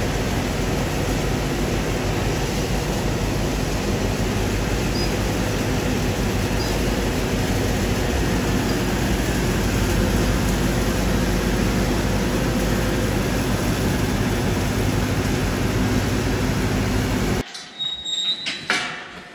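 Tractor-driven Teagle Tomahawk 8500 bale processor running, shredding a straw bale and blowing the chopped straw out: a steady dense rush of noise over the tractor engine's low hum. It cuts off suddenly near the end, leaving a few sharp clicks and knocks.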